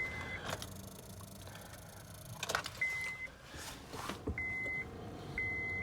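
Honda CR-V dashboard warning chime: four short high beeps, the last three about a second apart, with a few light clicks like keys and switches in the cabin.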